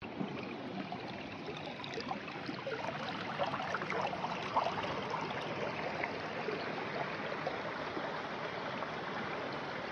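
Shallow stream running over rocks, a steady rush of water with small gurgles and splashes in the first half.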